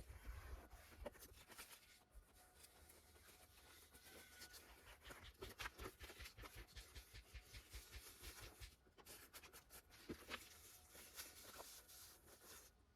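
Faint rustling and small crackles of anti-squeak tape being slowly pressed on along the edge of a car door trim panel.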